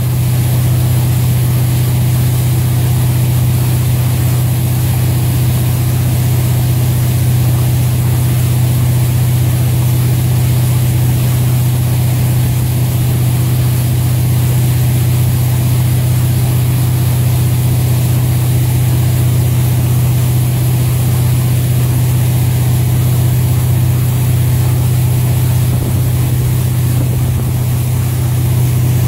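Ski boat's inboard engine running steadily at towing speed with a strong, even low hum, over the rush of the churned water in its wake.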